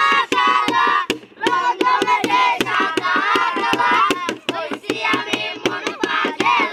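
Boys singing a song in high child voices, keeping time with two sticks beaten on an upturned container used as a drum, about four strikes a second. The singing breaks off briefly about a second and a half in.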